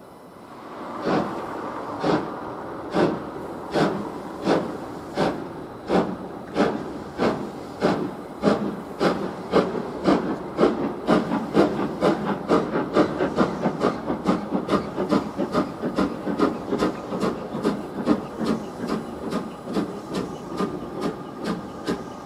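LMS Black 5 two-cylinder 4-6-0 steam locomotive pulling away from a stand, its exhaust beats starting about a second in, slow and sharp at first and quickening steadily to about three chuffs a second.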